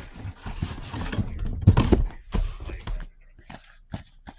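Rustling and clicking as items are handled and taken out of a box, loudest about two seconds in, then a few separate clicks.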